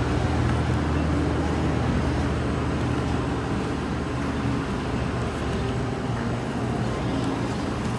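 Car engine running with a steady low hum and a constant wash of road or street noise.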